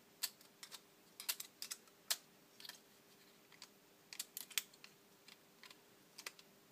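Faint, irregular light clicks and taps from a Philips micro system's cassette deck mechanism as it is turned over in the hands, its plastic and metal parts knocking, some clicks coming singly and some in quick little clusters.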